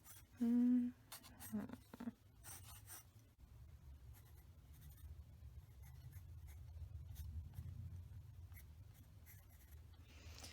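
Pencil scratching lightly on sketchbook paper in short sketching strokes, with a brief hummed "mm" about half a second in.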